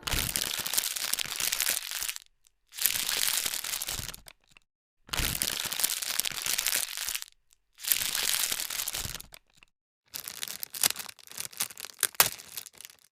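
Packaging being handled, crinkling and tearing in four stretches of about two seconds each with silent breaks between them, then sharper, separate crackles and snaps near the end.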